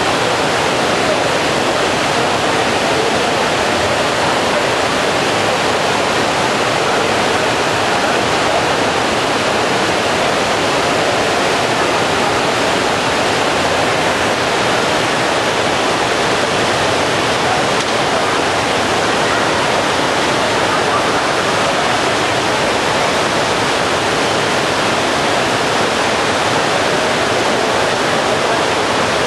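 Water of a large decorative fountain cascading down artificial rockwork: a steady, unbroken rush and splash.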